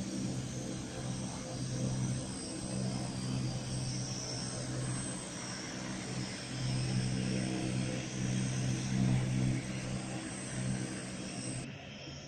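Propeller aircraft engines droning steadily, swelling and fading a few times, then dropping in level near the end.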